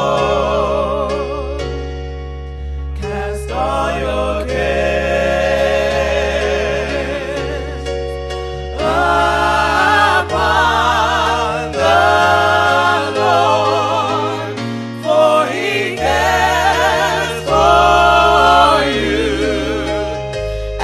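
Gospel music: voices singing with strong vibrato over held keyboard chords and steady bass notes that change in steps.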